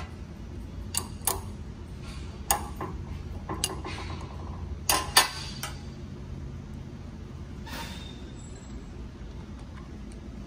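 A wrench and screwdriver clicking and clanking against the metal relief-valve cap and body of a 12 V hydraulic pump while the pump is being readied for a pressure adjustment. The sounds are a scattered series of short, sharp metallic knocks, the loudest two close together about five seconds in, over a steady low hum.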